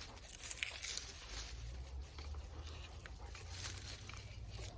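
Faint rustling with scattered light clicks as drip irrigation tubing is handled and moved aside in the potato pots.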